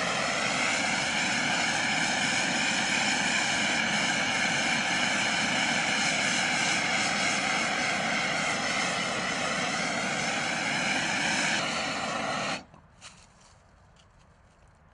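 Handheld gas torch lit with a sharp pop, then burning steadily with a rushing, hissing flame as it heats the spliced wire of a submersible well pump. It shuts off abruptly near the end.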